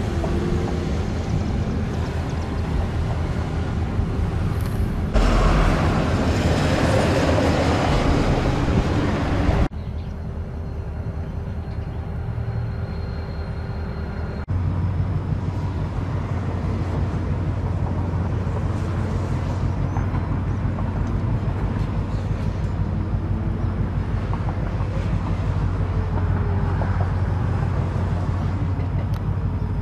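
Diesel freight locomotive engine running steadily, a low even rumble. The level and tone jump abruptly about five, ten and fifteen seconds in.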